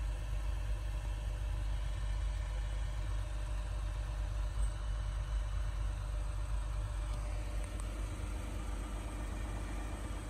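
Steady low rumble like an idling engine, even throughout.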